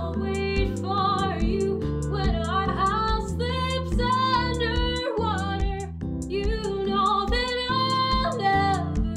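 Background music: a woman singing over a steady beat.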